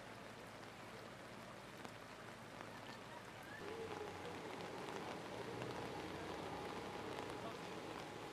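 Steady rain falling on a flooded street, an even hiss with fine raindrop ticks. It gets louder about three and a half seconds in, with a low hum underneath.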